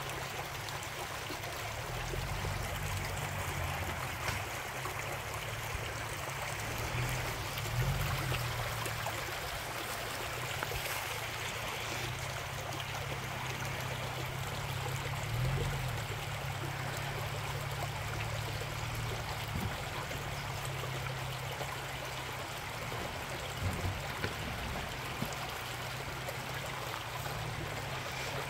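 Shallow creek trickling and running over rocks, steady throughout, with the low engine of an off-road 4x4 crawling slowly in the background, rising briefly now and then as it takes the throttle over obstacles.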